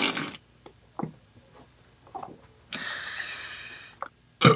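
A man working up a burp on command, swallowing air: a few faint gulps, a breathy hiss of a little over a second midway, then a short loud burp near the end.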